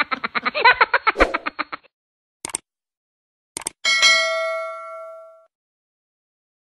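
A woman laughing in quick rhythmic pulses for about two seconds. Then come two short clicks and, about four seconds in, a bright bell ding that rings out for about a second and a half: a subscribe-button and notification-bell sound effect.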